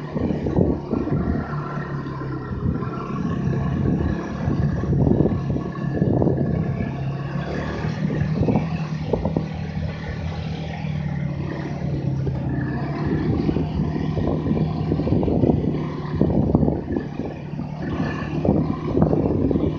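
Snowmobile engine running steadily under way, with uneven rumbling and bumping noise over it.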